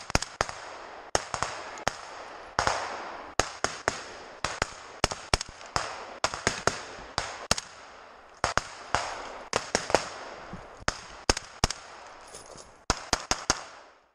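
Military rifles firing in a forest: irregular single shots, about two or three a second, some close and loud and others fainter, each ringing out with an echo through the trees. The sound cuts off abruptly at the very end.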